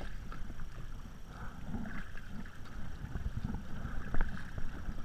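Kayak paddle strokes splashing and water washing along a tandem sea kayak's plastic hull in open-ocean swell, with wind on the microphone. About four seconds in there is one sharp knock, the loudest sound.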